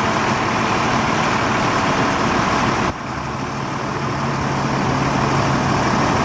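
A motor vehicle's engine running steadily under a loud rushing noise. The sound drops suddenly about three seconds in, then builds back up.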